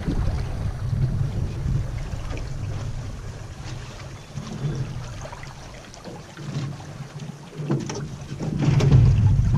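Wind buffeting the camera microphone in uneven gusts, with water slapping against an aluminium float as the floatplane drifts up to a dock. It eases off in the middle and picks up again near the end.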